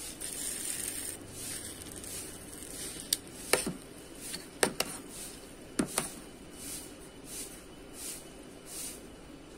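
Metal spoon clinking sharply against an enamel bowl a few times in the middle, some clinks in quick pairs, while scooping milk-soaked rice, with soft repeated swishing in between.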